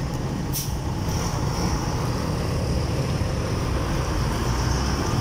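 Steady rumble of road traffic, with a sharp click about half a second in.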